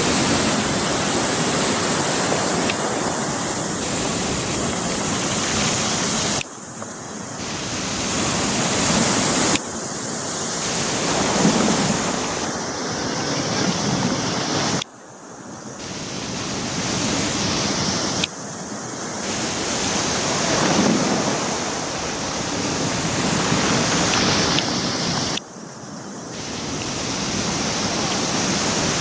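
Rough sea surf washing over a rocky, pebbly shore, with wind on the microphone. The level drops suddenly several times and builds back up each time.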